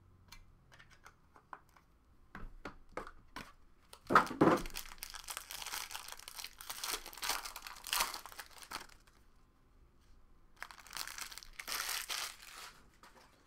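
Silver foil card-pack wrapper being torn open and crinkled. A few light handling clicks come first. A sharp rip about four seconds in leads into several seconds of crinkling, and another spell of crinkling comes near the end.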